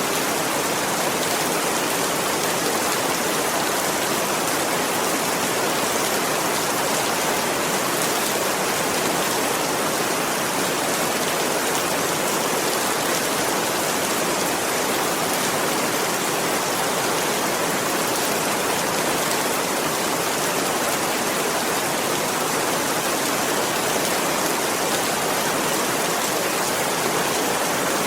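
Steady rain falling, a constant even hiss of many drops that neither swells nor fades.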